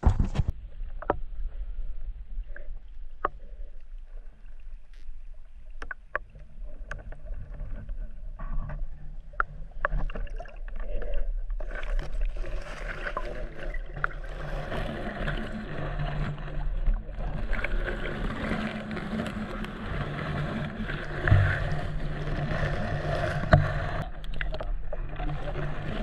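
Sound picked up by a camera under water among water plants: a steady low hum with scattered sharp clicks, thickening about halfway through into a denser rushing, sloshing noise.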